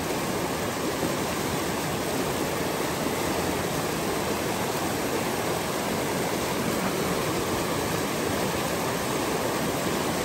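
Snowmelt-fed mountain creek rushing steadily.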